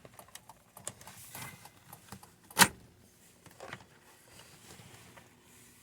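Plastic steering-column trim and the turn signal switch being worked loose by hand: irregular clicks and rattles, with one sharp, loud snap about two and a half seconds in.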